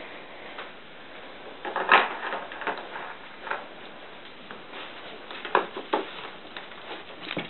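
Wheaten Scottish terrier nosing and shoving a long cardboard box across a rug to get at a treat inside. Scattered light knocks and scrapes of cardboard come from it, the loudest about two seconds in and a pair of knocks near the end.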